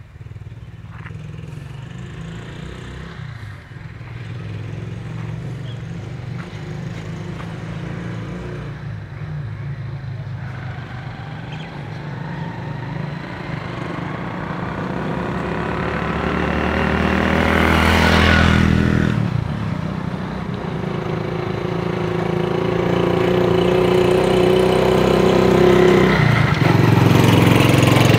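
Motorcycle engine getting louder as it approaches and passing close about two-thirds of the way in. Then another engine runs steadily and grows louder toward the end.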